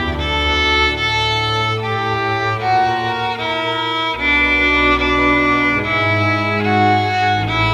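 Bowed string ensemble playing a slow melody in sustained notes, a violin line over held low bass notes.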